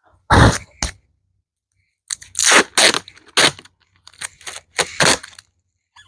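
Handling noise from plastic seed containers and labels: crinkling and rustling in a string of short, irregular bursts.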